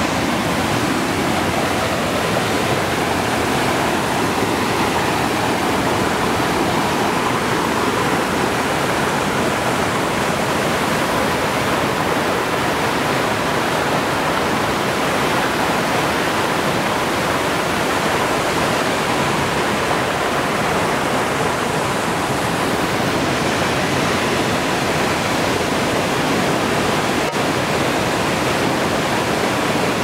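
Mountain creek cascading over granite boulders and down a waterfall: a steady rush of white water.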